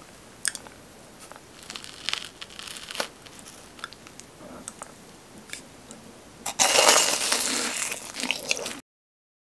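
Crisp crunching as a bite is taken into a fried BHC Ppuring cheese ball dipped in white sauce, loud for about two seconds near the end. Before it come a few faint crackles and clicks as the ball is handled and dipped.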